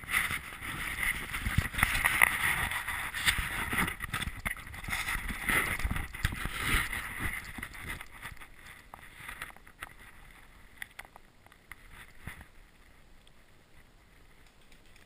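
Rustling and scuffing noise, like a player moving through brush and leaves, dense for the first eight seconds or so. It then fades to a quiet background with a few scattered faint clicks.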